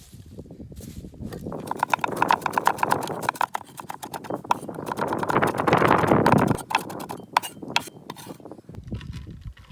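Rapid, regular knocking of chopping on a wooden board, several strokes a second, with a louder stretch of dense scraping and rustling in the middle.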